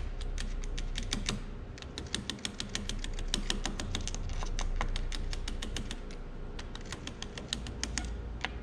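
Quick, irregular run of small metal clicks and taps, several a second, as a screwdriver tip works against steel parts inside a tractor transmission shaft bore, where a thin needle bearing has just been fitted.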